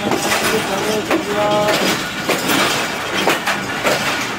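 Passenger train coaches rolling along the track, heard from an open carriage doorway: a steady running rumble with irregular clacks of the wheels over rail joints. A short call from a voice comes through about a second in.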